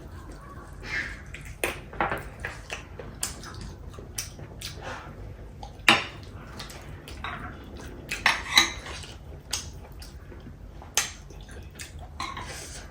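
Cutlery clinking and scraping against plates during a meal: a dozen or so scattered light clicks at uneven intervals, the loudest about six seconds in and a cluster around eight and a half seconds.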